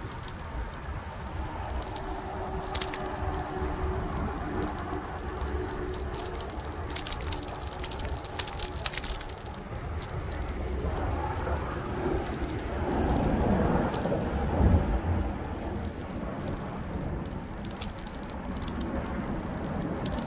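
Bicycle riding on a concrete path, heard from a handlebar-mounted camera: wind on the microphone and tyre rumble, with a few scattered rattling clicks. It gets louder for a couple of seconds about two-thirds of the way through.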